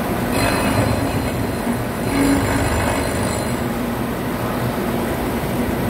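Chamfer mill in a CNC boring mill's spindle cutting the welded edge of a stainless-steel (STS316) pipe nozzle: steady machine noise with a constant low hum, and a thin high-pitched cutting squeal from about half a second to three and a half seconds in.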